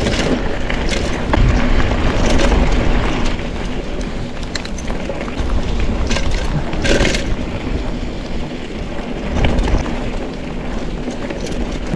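Wind buffeting the microphone over the steady rumble of a mountain bike rolling along a dirt trail, with scattered clicks and rattles and a brief hiss about seven seconds in.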